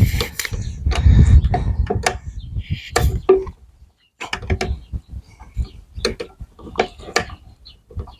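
Wooden chair parts being pulled apart and handled: a dense run of knocks, clicks and creaks with a low rumble over the first few seconds, then scattered sharp clicks after a short lull.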